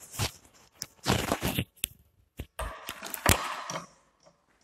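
Clip-on microphone being handled and removed from a shirt: irregular rustling, scraping and crackling of the mic against the cloth, which stops about four seconds in.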